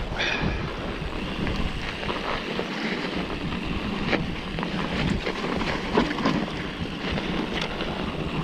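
Mountain bike rolling along a snow-covered trail: steady tyre rumble on snow with wind buffeting the camera's microphone, and scattered sharp knocks and rattles from the bike going over bumps.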